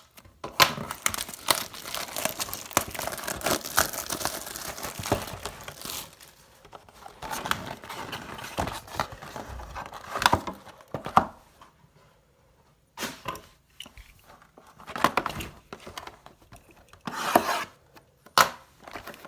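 Packaging being torn and crinkled as a box of trading cards is opened: stretches of rustling, tearing and crackling, with sharp snaps, and a brief pause about two-thirds of the way through.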